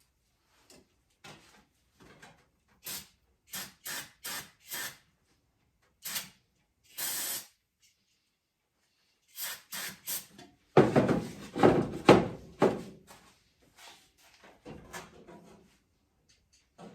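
Aerosol ether starting fluid sprayed in a series of short hissing bursts. About eleven seconds in comes a loud rumbling clatter lasting about two seconds.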